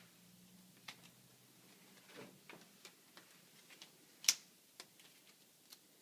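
Irregular light clicks and taps of small hard parts being handled, with one sharper click about four seconds in.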